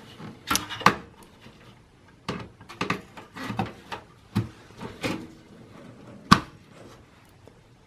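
Graphics card being fitted into a desktop PC's PCI Express x16 slot: scattered light clicks and knocks of the card's metal bracket and plastic against the case, with one sharp click about six seconds in.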